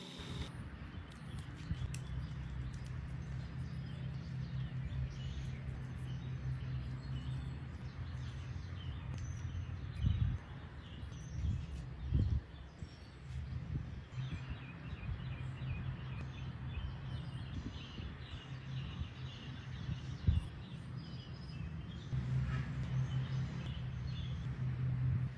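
Outdoor ambience: birds chirping over a steady low hum, with a few soft knocks from handling.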